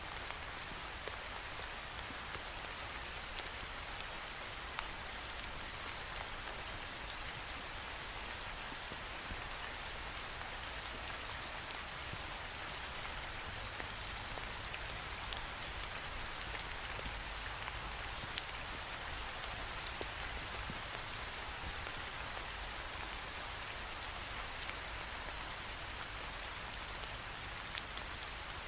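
Steady rain falling against a window, a constant hiss with many small drop ticks on the glass and a faint low rumble underneath.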